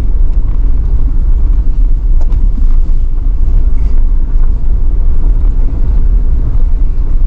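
A 4x4 vehicle driving down a steep mountain pass, heard as a loud, steady low rumble of the vehicle on the road.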